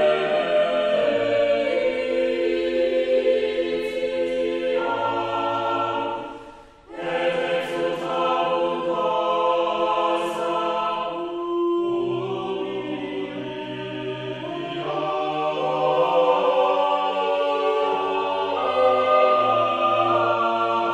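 Choral music: voices holding long sustained chords that change step by step, with a brief dip in loudness about seven seconds in.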